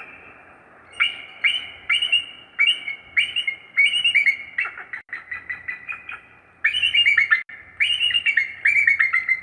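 Bird calling a series of short, high, downslurred whistled chirps, about two a second, breaking into a faster, louder chittering run about two-thirds of the way through.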